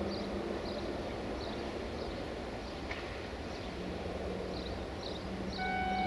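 Steady low rumble of the LDH diesel-hydraulic shunting locomotive idling, with a small bird chirping over it again and again. Near the end a locomotive horn starts a steady multi-tone blast.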